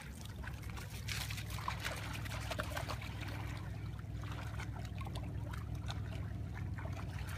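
Dogs wading and splashing in shallow lake water over stones: small irregular splashes and trickles over a steady low rumble.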